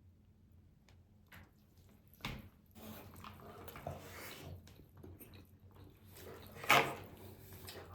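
Close-miked, wet chewing of meatballs and rice. After a quiet start comes a sharp smack a little over two seconds in, then steady squishy chewing, with the loudest smack near the end.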